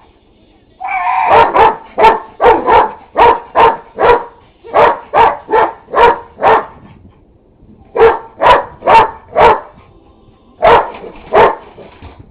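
A dog barking in quick runs of sharp barks, about two or three a second, with short pauses around two-thirds of the way through and again near the end. He is barking at a vacuum cleaner that is switched off.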